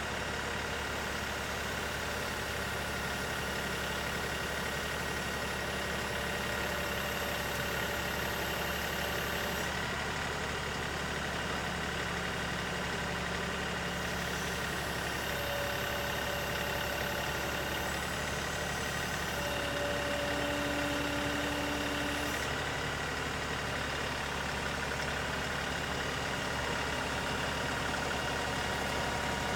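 LS XR3135 compact tractor's diesel engine running steadily, with a few short whining tones coming and going midway.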